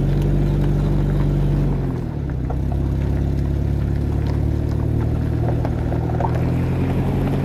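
Vehicle engine running steadily as it drives, heard from inside the cab, a low hum whose note dips and shifts once about two seconds in before settling again.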